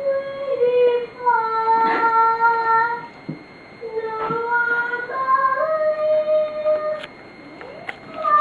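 Background music: a slow melody of long held notes stepping from pitch to pitch, with a few faint knocks.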